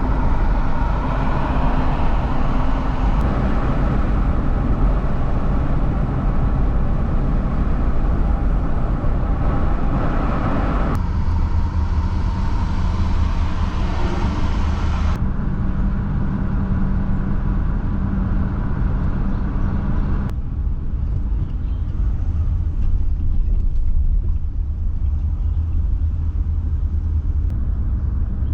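A car driving: steady engine hum and road rumble, heaviest in the low end, changing abruptly at about 11, 15 and 20 seconds in as clips are cut together.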